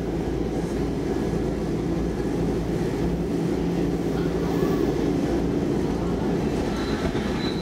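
Stockholm Metro C14 train heard from inside the carriage while running along the track: a steady low rumble of wheels and running gear.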